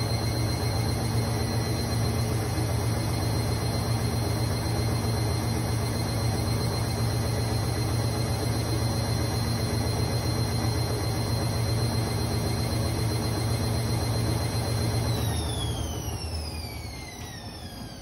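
Candy front-loading washing machine spinning its drum, packed with excess suds (a suds lock), with a steady motor whine and low hum. About fifteen seconds in the drive cuts out and the whine falls in pitch as the drum slows.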